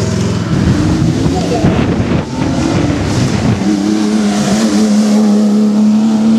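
A classic sports car's engine revving unevenly as it pulls away. From about three and a half seconds in, a red Ferrari 250 GTO's V12 holds a steady engine note as it drives past.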